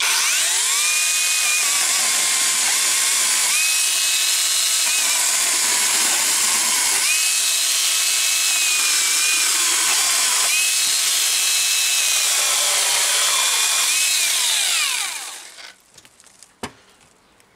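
Cordless brushless angle grinder driving a Drillpro 12-inch chainsaw attachment, sawing through a wooden post. It spins up at the start and runs steadily, its pitch dipping several times as the chain bites into the wood. It spins down about fifteen seconds in.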